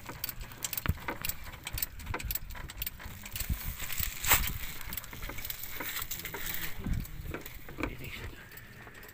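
Hand wrench working a bolt under a car, with irregular metal clinks, clicks and knocks, the loudest a little past four seconds in.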